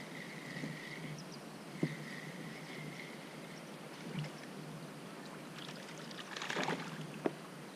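Small fishing boat on a lake: scattered light knocks and water sounds, with a faint steady high tone for the first few seconds and a short rush of noise about six and a half seconds in.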